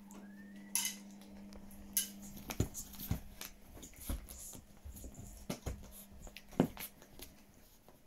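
Yorkshire terrier playing with a toy on a bedspread: scattered soft knocks, clicks and rustles of paws and toy on fabric, with a couple of sharper rustling bursts in the first two seconds. A steady low hum runs under the first couple of seconds.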